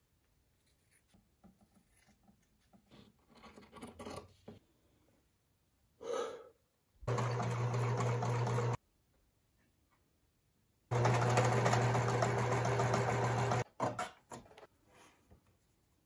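Electric sewing machine stitching fabric, running in two bursts: a short one of about a second and a half, then a longer one of nearly three seconds, each starting and stopping abruptly with a steady motor hum.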